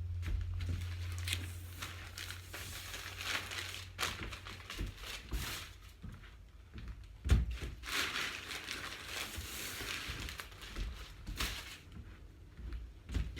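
Batt insulation being handled and pulled apart by bare hands: irregular rustling and crinkling with tearing sounds, and one sharp thump about seven seconds in. A low hum fades out in the first second or two.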